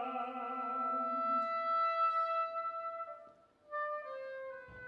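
Chamber music: a baritone holds the last sung word for about two seconds over sustained woodwind notes, then the winds move to a new chord near the end.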